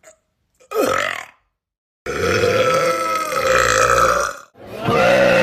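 Loud human burps: a short one just under a second in, then a long drawn-out burp of about two and a half seconds, and another long one starting near the end.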